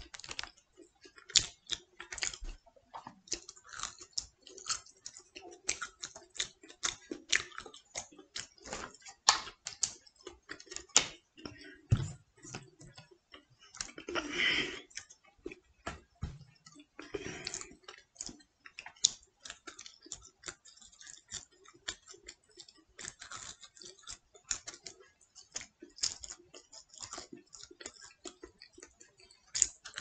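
Close-up chewing of crisp pizza crust: irregular crunches and wet mouth clicks, with a brief louder rustle about halfway through.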